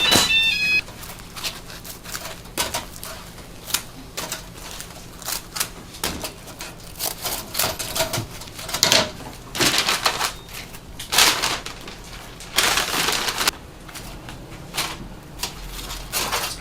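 Irregular clicks, knocks and short scrapes of metal being handled while bungeoppang are cooked in an iron mold machine, with one longer scrape about three-quarters of the way through. A short electronic melody cuts off just under a second in.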